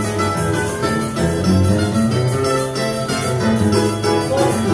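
Choro ensemble playing: cavaquinhos, a mandolin and nylon-string acoustic guitars picking a tune over a moving low guitar line.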